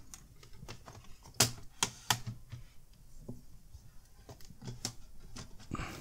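Plastic bottom cover of an HP Pavilion 15 laptop being worked loose and handled, its snap-clips and plastic edges giving a string of irregular small clicks, with three sharper snaps about one and a half to two seconds in and a brief scrape near the end.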